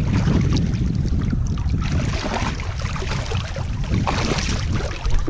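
Water splashing and sloshing as a swimmer stands up and wades through shallow lake water, with small waves lapping close by and wind rumbling on the microphone. The splashing is strongest about four seconds in, as the legs stride through the water.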